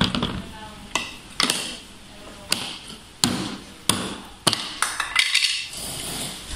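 A baby banging and slapping a small tabletop with its hands and toy pieces: sharp, irregular knocks and taps, about one or two a second.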